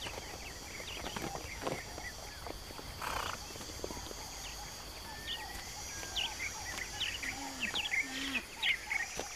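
A few hoof thuds from zebras scuffling on dusty ground in the first two seconds. After that, many short bird chirps come in over a steady high insect trill.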